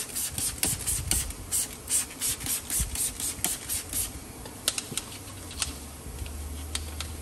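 Wheel brush scrubbing the inside of a wet alloy wheel barrel in quick back-and-forth strokes, about four a second. The scrubbing stops about four seconds in, leaving a few light clicks and taps over a low hum.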